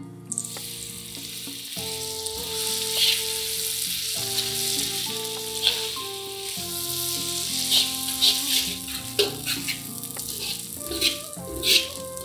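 Curry spice paste (rempah) with curry leaves sizzling in hot oil in a wok while a metal spatula stirs and scrapes it, with sharper scraping strokes coming every second or so in the second half.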